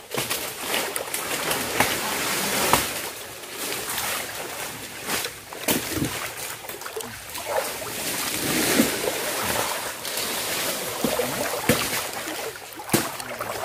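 Water splashing and sloshing in a nipa swamp, with irregular sharp knocks and rustling scattered throughout.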